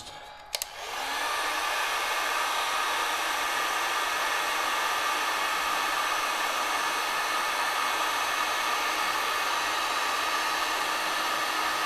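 Heat gun switched on with a click and blowing steadily, as used to shrink heat-shrink tubing over soldered connector wires.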